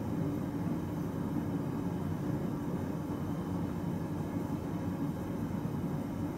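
Propane forge burner running with a steady, low rushing noise while a steel knife blade is heated to quench temperature.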